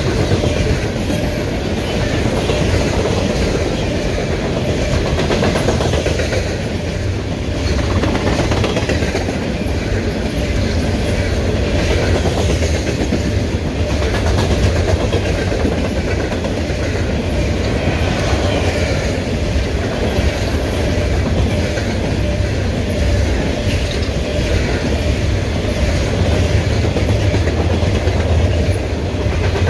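Norfolk Southern freight train of open-top hopper cars rolling past, steel wheels on the rails making a loud, steady noise without let-up.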